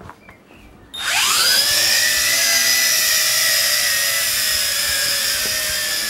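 Tarantula X6 quadcopter's electric motors and propellers spinning up about a second in. The pitch rises quickly, then holds as a steady high-pitched whine while the drone takes off.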